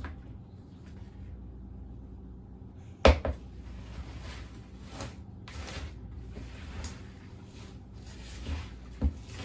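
Spoon stirring pretzels coated in a thick peanut-butter mix in a bowl: a sharp knock about three seconds in, then a series of soft scraping strokes about a second apart.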